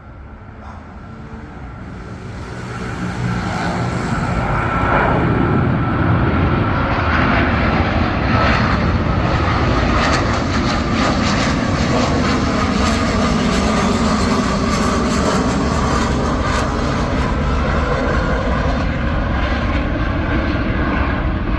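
Boeing 777 jet engines at takeoff power as the airliner climbs out past, building over the first few seconds to a loud, steady roar with a whining tone that slowly falls in pitch. The spotter calls it a strange noise.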